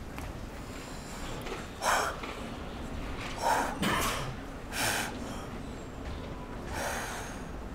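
A man's forceful breaths: five short, loud breath sounds at irregular intervals over a faint steady background.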